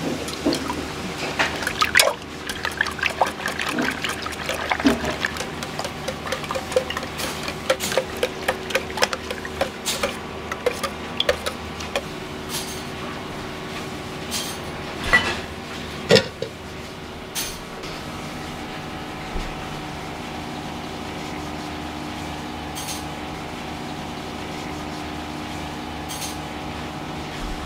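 Wire whisk beating a large batch of raw eggs in a stainless steel pot: rapid sloshing with quick clinks of the whisk against the metal, thinning out about halfway through, followed by a few sharp knocks. Near the end the beaten egg is strained through a mesh sieve with a steady liquid sound.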